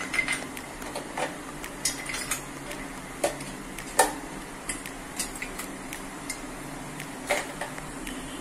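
Ice cubes being spooned into a blender jar: about a dozen sharp, irregularly spaced clinks and knocks of ice and spoon against the jar, over a faint steady hum.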